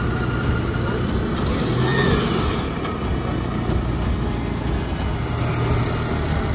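Off-road 4x4's engine running steadily, a low rumble under dense mechanical noise, with a thin high squeal that comes in about one and a half seconds in, fades near three seconds and returns near the end.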